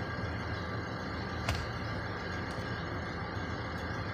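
Warmed-up car engine idling steadily under the open hood, with a faint click about one and a half seconds in.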